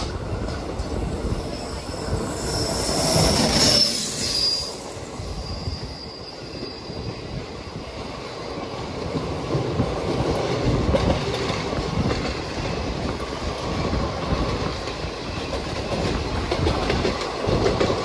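Indian Railways passenger train running through a curve, its wheels squealing in high tones on the rails a few seconds in, the loudest moment. After that a steady rumble and clatter of wheels on rails, swelling a little from about halfway as another train runs alongside on the next track.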